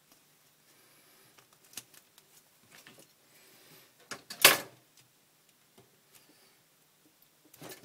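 Handling noise from hands working on a foam model-plane tail and carbon fibre rod: scattered light taps, scrapes and rustles, with one loud knock about four and a half seconds in and a few more knocks near the end.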